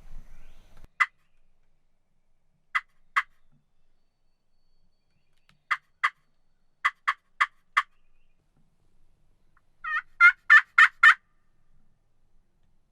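Wild turkey gobbler gobbling, a quick rattling run of notes about ten seconds in. Before it come scattered short, sharp cluck-like notes, some single and some in quick pairs and runs of four.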